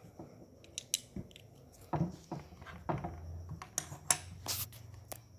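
Plastic Lego bricks clicking and clattering on a wooden table as they are handled, a string of irregular sharp clicks, the loudest about four seconds in.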